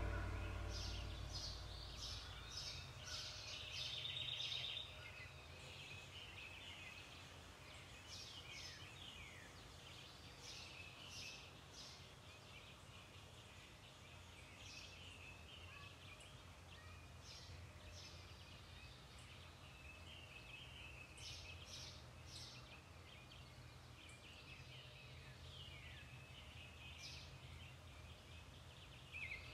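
Faint birdsong from several birds: many short chirps and quick falling whistles, scattered throughout, over a low steady hum. The tail of the music dies away in the first second or two.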